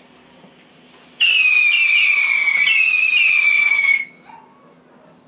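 Chiflador, a Mexican whistling firework, going off with one loud, high-pitched whistle that starts suddenly about a second in. It lasts about three seconds, sinking slightly in pitch with small wavers, and stops abruptly.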